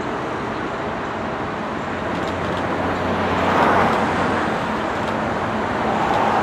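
Pair of GE AC44C6M diesel-electric locomotives approaching at the head of an intermodal freight train, their engines running with a low steady drone. The drone grows louder about two seconds in, and a surge of wheel and rail noise is loudest about halfway through.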